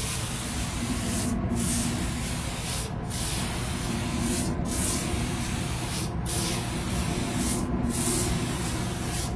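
Hose-fed spray gun on a 3M Scotch-Weld pressurised adhesive cylinder spraying contact adhesive with a lot of force: a steady hiss that thins briefly about every second and a half, between sweeping passes.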